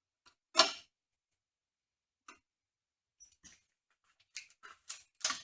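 Scattered sharp clicks and knocks of tools or metal parts being handled at a workbench. The loudest is a single clack about half a second in, then a run of lighter clicks and taps in the last two seconds.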